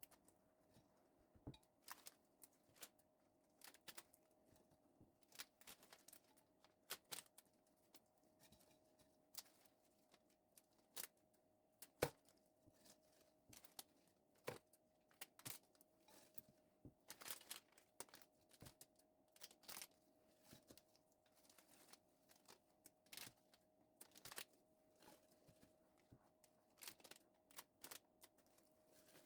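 Scattered light clicks and taps of kitchen handling, irregular and quiet, with one sharper knock about halfway through, over a faint steady hum.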